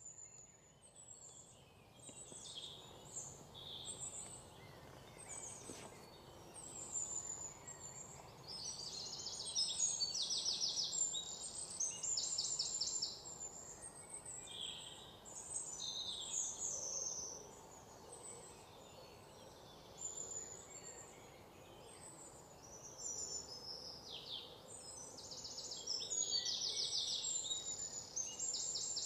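Many birds chirping and calling, with several fast rattling trills, over a steady low background hiss.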